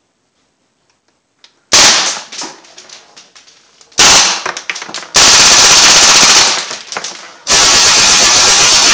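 Crosman AK1 CO2-powered BB rifle firing on full auto, emptying its 28-round magazine. After a moment of quiet come two short bursts, about 2 and 4 seconds in, then two long bursts of rapid, evenly spaced shots.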